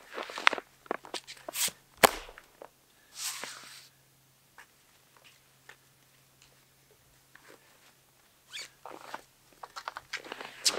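Ski touring gear being handled: the crinkle and peel of a glue-backed climbing skin being folded onto itself and stowed, with scattered clicks and knocks of equipment. A sharp click about two seconds in is the loudest sound, and short scraping hisses come a little after three seconds and again near the end.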